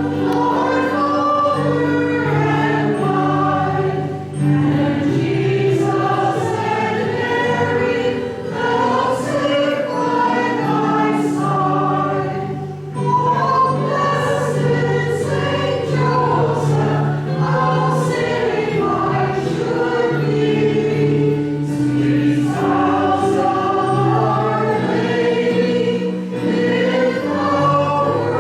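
A choir singing a hymn in long held notes.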